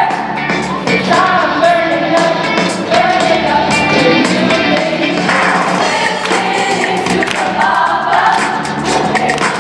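High school show choir singing an upbeat number in full voice over instrumental accompaniment with a steady beat.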